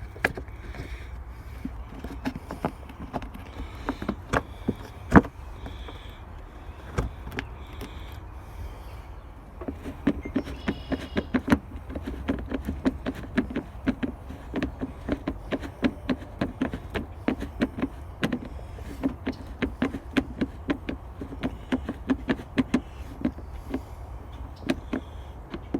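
Hand tools working the bottom mounting bolts of a car radiator. Scattered metal clicks and clinks at first, then from about ten seconds in a long run of quick, even clicks, as from a ratchet wrench driving the bolts.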